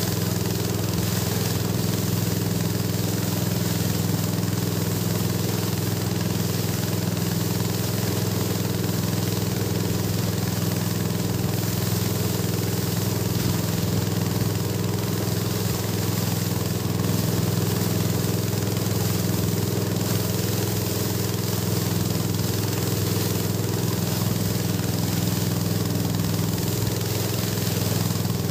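A boat's engine running steadily at an even speed, a constant low hum with a hiss of wind and water over it.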